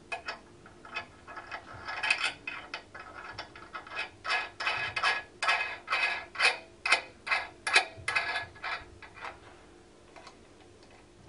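A metal nut being spun by hand onto a threaded bolt through a stainless steel barrier base, giving an irregular run of light metallic clicks and rattles. The clicks come thickest in the middle and die away near the end.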